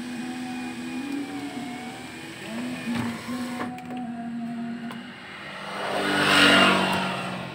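Electric sunroof motor of a 2005 Toyota Alphard whirring steadily as the glass panel slides open, its pitch shifting slightly, with a couple of clicks about three seconds in. Near the end a louder rushing noise swells and fades.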